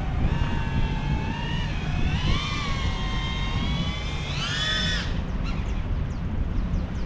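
GEPRC Cinelog35 V2 FPV cinewhoop drone's motors and propellers whining, the pitch rising and falling with the throttle, with a sharp surge about five seconds in before the whine drops away. A steady low rumble runs underneath.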